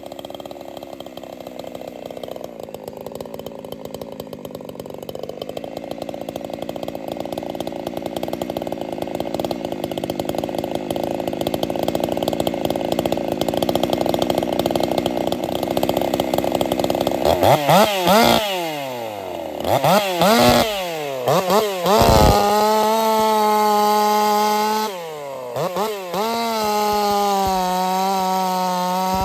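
Two-stroke Jonsered 2149 racing chainsaw running loaded in a cut, getting slowly louder for about the first 17 seconds. It is then revved up and down in short bursts and held at high revs for a few seconds, before going back into the wood near the end.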